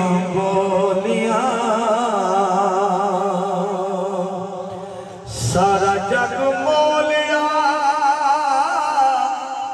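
Male singer performing Punjabi Sufi kalam through a sound system, holding long wavering notes with heavy vibrato. He breaks off briefly about halfway and starts a new phrase.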